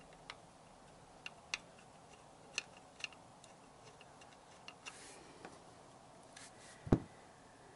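Scattered light clicks and taps from hands handling parts on a motorcycle engine's alternator cover, with one louder knock near the end.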